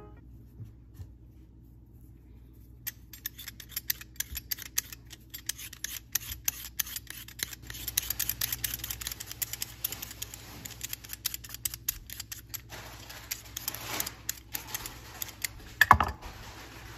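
Vegetable peeler scraping the skin off a raw eddo (taro corm) in quick repeated strokes starting about three seconds in, thinning out later, with a single louder knock near the end.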